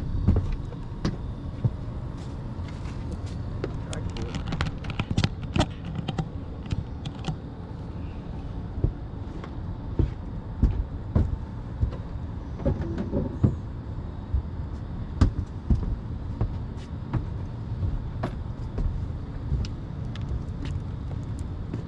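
Irregular knocks and clatter of gear being handled aboard a fishing boat while a fish is on the line, over a steady low rumble.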